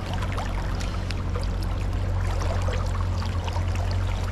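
Steady rush of flowing river current below a dam, with scattered light clicks and small splashes.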